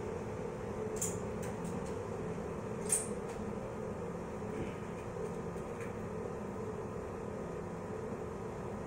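Steady low hum of room background noise, with a few faint clicks about a second in and a slightly sharper click just before three seconds.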